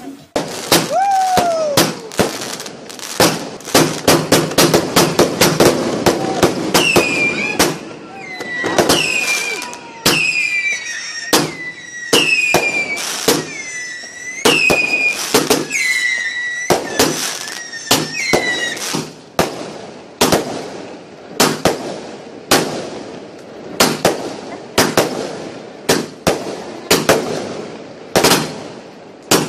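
Fireworks and firecrackers going off: a dense, irregular string of sharp bangs throughout. From about seven seconds to nineteen seconds, a run of short falling whistles sounds among the bangs.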